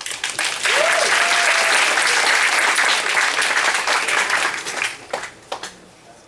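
Audience applauding: the clapping swells quickly, holds steady for several seconds, then thins out to a few scattered claps about five seconds in.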